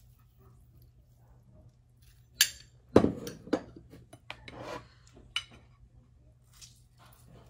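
Metal fork and ceramic plate clinking and knocking together as the plate of noodles is handled: a handful of sharp clinks between about two and a half and five and a half seconds in, the loudest near three seconds.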